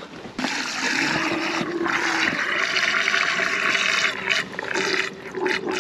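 Water from a hose running into a camper van's fresh-water tank through its filler inlet. It starts about half a second in and then runs steadily.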